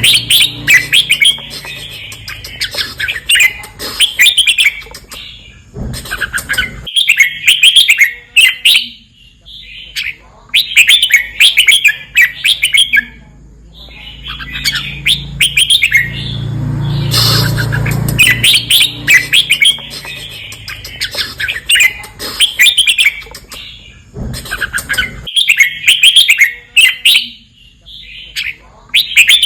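Red-whiskered bulbul singing: loud, rapid chirping phrases in bursts of a few seconds, broken by short pauses.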